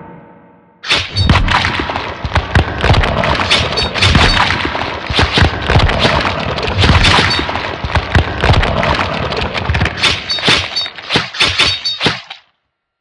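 Loud, dense crashing and breaking sound effects, many sharp impacts in quick succession. They start about a second in and cut off suddenly near the end.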